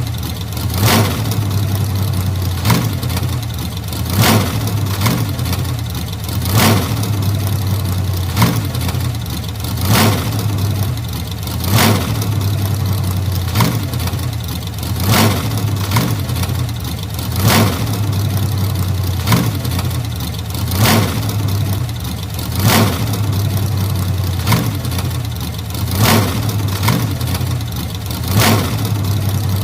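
Old car engine idling steadily, with a sharp louder beat about every one and a half to two seconds.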